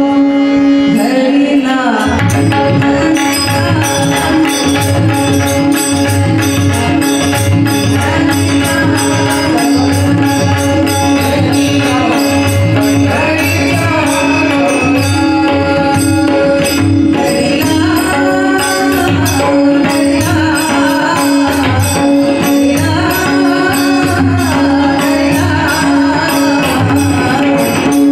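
Marathi devotional abhang bhajan: voices singing over a steady drone, with an even drum beat and regular strokes of small hand cymbals.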